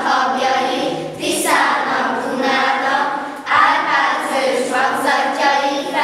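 Children's choir singing together in phrases, with notes held for a second or more and short breaks between phrases.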